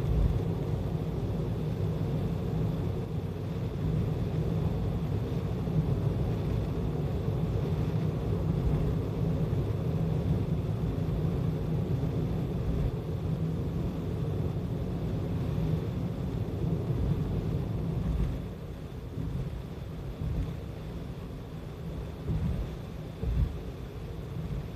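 Steady low rumble of tyre and engine noise from a car cruising on an expressway. It gets quieter and more uneven about three-quarters of the way through, as the car slows in thickening traffic.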